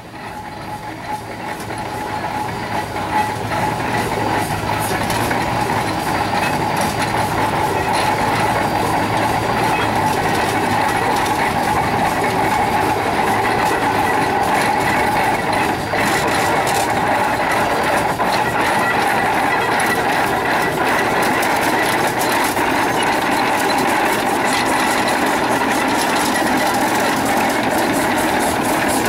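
Robinson steam traction engine running as it drives up, getting louder over the first few seconds and then holding steady close by.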